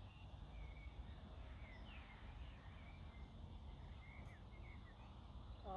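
Birds chirping faintly in short, scattered calls over a low, steady outdoor rumble.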